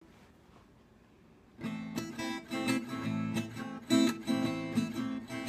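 Acoustic guitar strummed in a quick, even rhythm. It starts about one and a half seconds in, after a short near silence.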